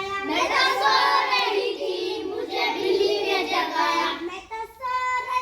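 A group of children singing together. About four seconds in the group stops and a single voice carries on singing alone.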